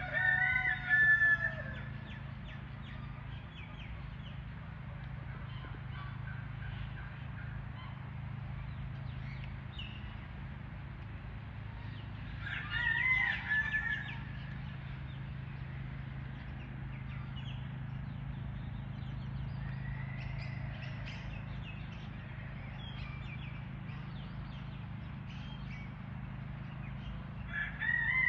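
A rooster crowing three times: at the start, about halfway through and again at the end. Faint short calls of smaller birds come in between, over a steady low hum.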